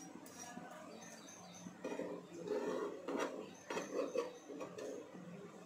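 Metal spatulas scraping and knocking on a nonstick tawa as a stacked dhokla sandwich is pushed and lifted in a little oil. The knocks come in a cluster about three to four seconds in.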